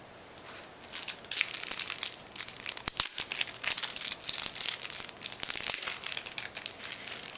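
Plastic packaging crinkling and crackling as it is handled and pulled open, with a sharp click about three seconds in.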